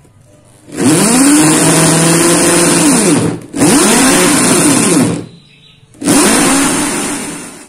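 Corded electric drill with a hole saw boring a concealed-hinge cup hole through a wooden guide block into a plywood cabinet door. It runs in three bursts, each winding up and then back down in pitch, and the last one trails off near the end.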